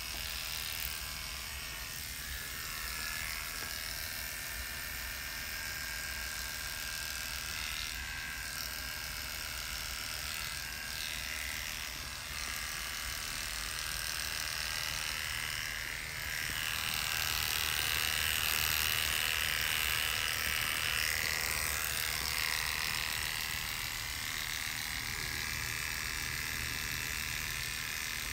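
Electric hair clippers buzzing steadily as they shave a man's head down before an FUE hair transplant, louder for a few seconds past the middle.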